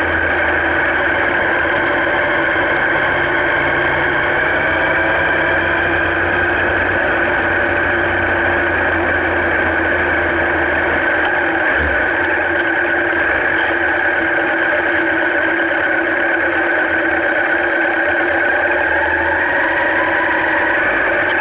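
A motor vehicle running steadily, picked up by a camera mounted on its frame, with a constant mechanical drone. A deep low rumble drops away about halfway through.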